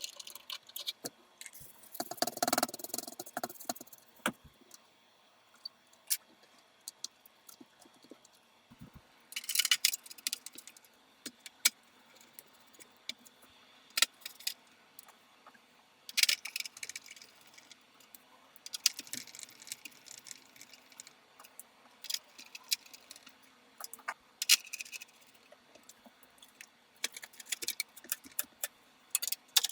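Small metal parts and a PC's sheet-metal case being handled and fitted: scattered sharp clicks and short jingling rattles, in irregular clusters separated by quiet gaps.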